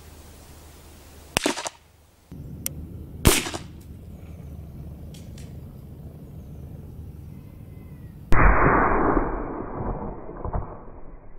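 Two sharp .22 LR rifle shots, about two seconds apart, the second one louder. Near the end comes a longer, muffled burst that dies away over about two seconds.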